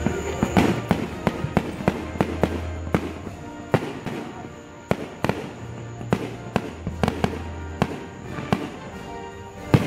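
Aerial fireworks bursting: a quick series of sharp bangs and crackles, with one of the loudest bangs near the end.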